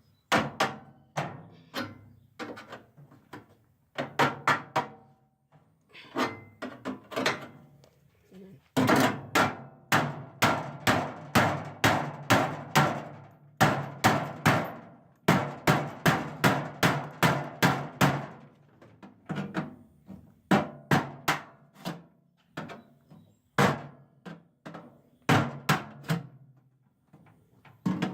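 Hammer driving a chisel against a microwave's metal parts to pop them out: quick runs of sharp blows, several a second, with short pauses between runs.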